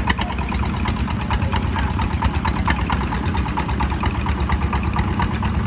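Boat engine running steadily, with a rapid, even pulsing beat.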